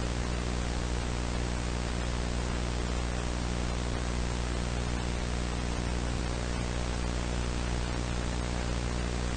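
Steady static hiss with a low buzzing hum underneath, unchanging throughout: dead-air broadcast static.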